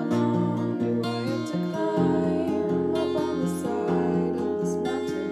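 A woman singing the melody over a strummed acoustic guitar.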